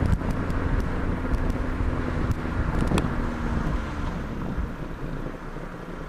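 Exhaust of a 2010 Mazda3 GT's four-cylinder engine through a newly fitted MagnaFlow muffler, heard at the tailpipe while driving: a steady drone with a held tone that fades after about four seconds. Several sharp pops come in the first three seconds.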